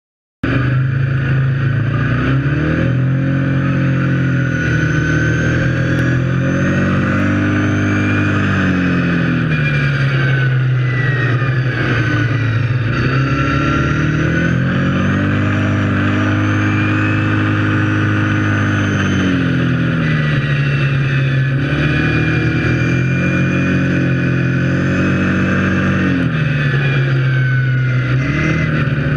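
Kawasaki KFX 700 quad's V-twin engine running under load. Its pitch climbs and drops back in long sweeps every few seconds as the throttle is opened and eased off, with a higher whine that follows the revs.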